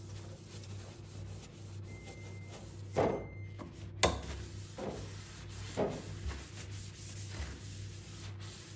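Cloth or sponge rubbing over a hard surface, as in wiping during a refrigerator clean. There are a few short strokes and one sharp click or knock about four seconds in, over a low steady hum.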